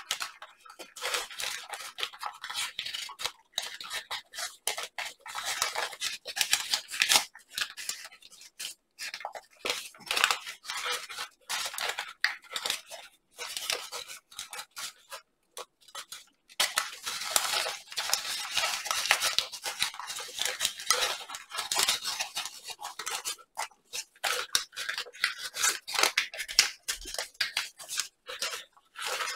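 Large sheet of paper crinkling and rustling as it is folded and creased by hand in origami, in irregular stop-start bursts with short pauses between.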